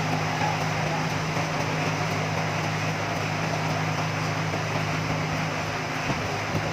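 Sawmill machinery running steadily: a constant low hum with an even noisy hiss over it.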